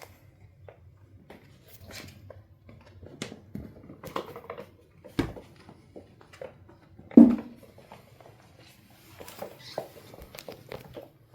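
Maine Coon kittens play-fighting: irregular light knocks, scuffles and patter of paws and bodies, with two louder thumps about five and seven seconds in.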